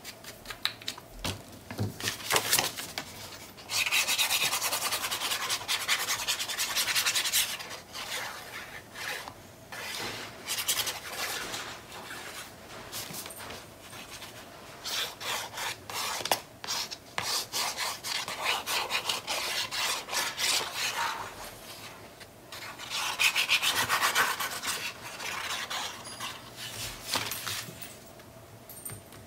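Hand rubbing and pressing paper against a cutting mat in repeated scratchy strokes, smoothing freshly glued designer paper into place.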